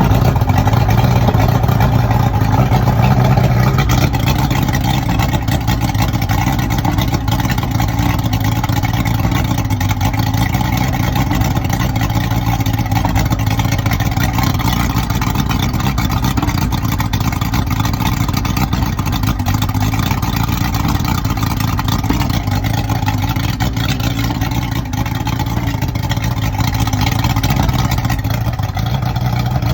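Yamaha OX66 150 HP V6 two-stroke outboard running on a flush hose at a low, rough idle. It is a little louder for the first few seconds, then settles slightly lower. The owner later cured this low idle by adjusting the oil pump's oiler arm.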